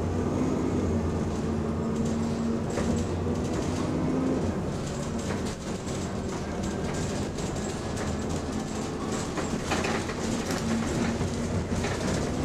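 London bus running, heard from inside the passenger saloon: engine and road noise under a steady hum, which the video's title puts down to the engine cooling fan. The higher part of the hum fades about four and a half seconds in.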